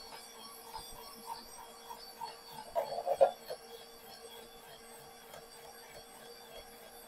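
KitchenAid stand mixer running at speed 6, spinning the slicer shredder attachment's blade drum as a potato is pushed through and sliced: a steady motor hum and whine, with a short burst of knocking about three seconds in.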